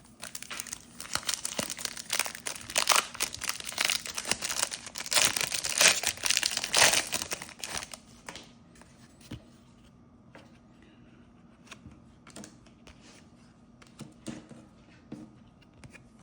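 Small foil trading-card pack wrapper being torn open and crinkled, a dense crackling that lasts about eight seconds, then only faint scattered ticks.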